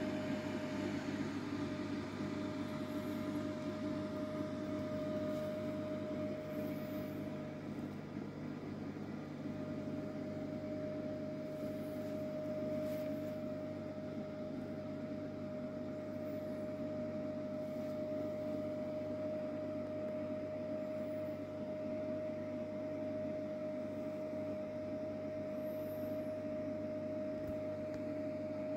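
Aquarium equipment running: a steady low hum and hiss with a constant whining tone, which drops out briefly about eight seconds in.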